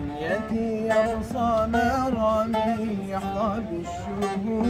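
A man sings a wordless, melismatic line that slides and wavers with vibrato, over a plucked long-necked saz.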